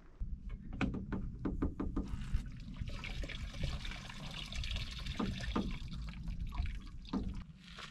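Water running from the spigot of a plastic water jug into a bottle. A few clicks and knocks of handling come first, then the water runs steadily for about five seconds.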